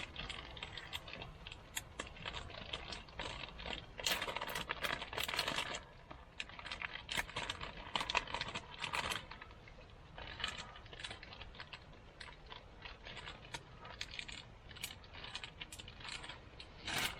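Irregular crinkling and clicking of food packaging being handled, in dense clusters with the busiest stretch about four to six seconds in and a short loud burst near the end.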